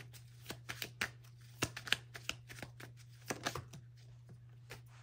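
Oracle cards being shuffled and handled: a run of short, irregular flicks and snaps of card stock, over a faint steady low hum.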